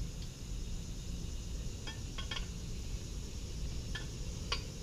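A few faint, light clicks and taps of fuel injectors and fittings being handled and pressed into a metal fuel rail, in two small clusters about two and four seconds in, over a low steady background hum.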